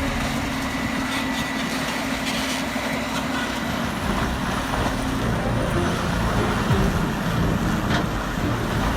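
Heavy diesel machinery running steadily, with a few sharp knocks and clatters.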